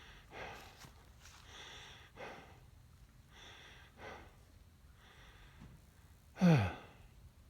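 A man breathing hard, a string of audible breaths about a second apart, then a short voiced sigh that falls in pitch near the end.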